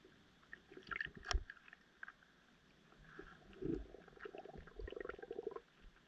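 Underwater sounds in a seagrass bed. Scattered sharp clicks and pops come in a cluster about a second in, then a low thump, then a rapid buzzing run of pulses over the second half that stops just before the end.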